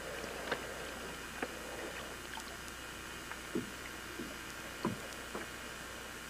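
Water sloshing with a few short, soft splashes against a boat's side as a muskie is held in the water beside the hull.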